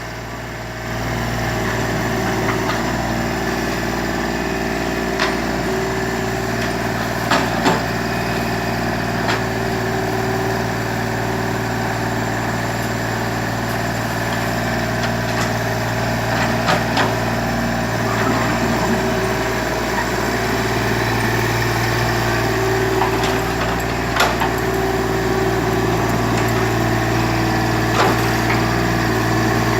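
Excavator's diesel engine running steadily, with a few scattered sharp knocks and clanks.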